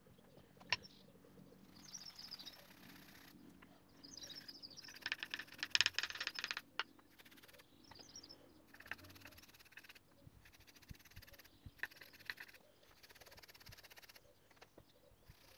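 Rapid hand scraping and rubbing at a motorcycle chain adjuster being cleaned before re-greasing, loudest about five to seven seconds in, with scattered small clicks of metal parts. Birds chirp briefly a few times in the background.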